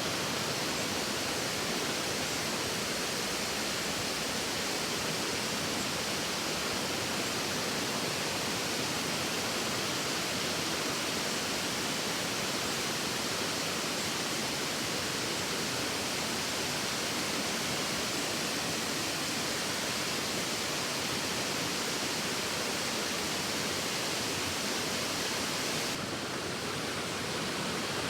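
Waterfall, a steady rush of falling water that dips slightly in level near the end.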